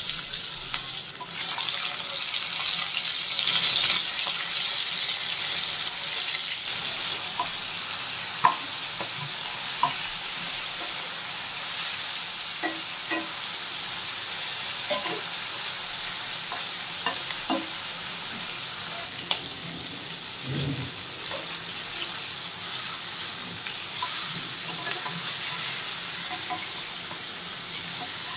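Hilsa fish pieces sizzling steadily as they fry in oil in a non-stick kadai, with occasional short clicks and scrapes of a metal spatula against the pan as the pieces are turned.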